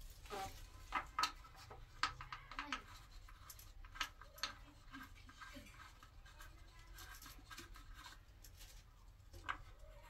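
Faint, irregular clicks, taps and scrapes of hands working on a plastic oval wall light fixture.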